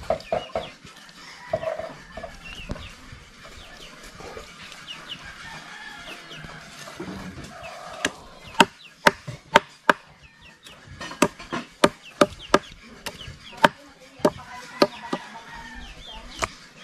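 Large knife chopping through fish on a wooden cutting board: a run of sharp knocks, about two a second, through the second half.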